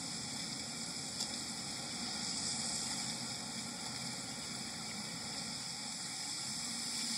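Steady rushing outdoor ambience of wind and running water from a TV drama's soundtrack, heard through the television's speaker. A faint click about a second in.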